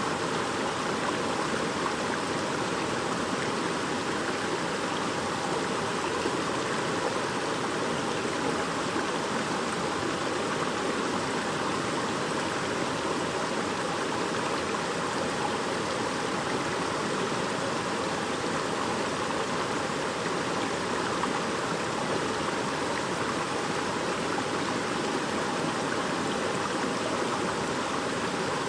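Shallow stream babbling over stones, a steady, even rush of running water.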